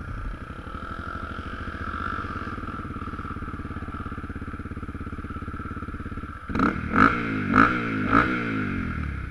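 2013 Honda CRF250L's single-cylinder engine idling steadily, then blipped hard three times in quick succession, the revs dropping back after each blip.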